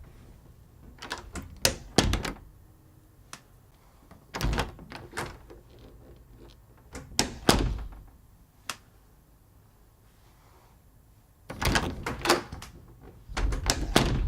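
House door being opened and shut several times: clusters of sharp latch clicks and knocks, each ending in the thud of the door closing, with quiet room tone between.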